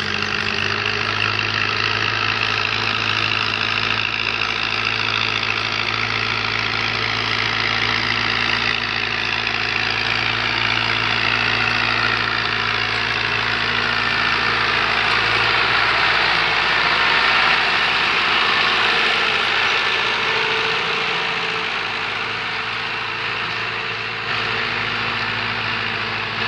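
New Holland 640 tractor's diesel engine running steadily while pulling a disc plough through the soil. It grows louder as the tractor comes close, loudest about two-thirds of the way through, then eases off a little as it passes.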